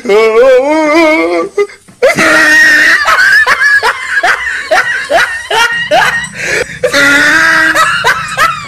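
Loud laughter in repeated short bursts, with a wavering, drawn-out vocal call at the start and again near the end.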